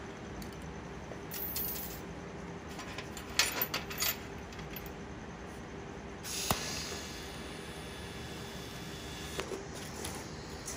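Steel chain links clinking against each other and the steel welding table, then, about six and a half seconds in, a TIG welding arc strikes with a sharp crack and runs as a steady hiss.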